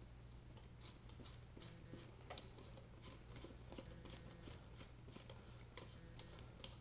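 Faint, irregular clicks and crunches of a hand tap cutting 1/4-20 threads into the wall of a PVC pipe, starting about a second in, over a low steady hum.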